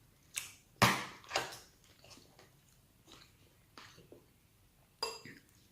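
A person chewing and biting into a mouthful of chicken adobo and rice close to the microphone, a series of short wet mouth sounds with a few sharp clicks, the loudest about a second in.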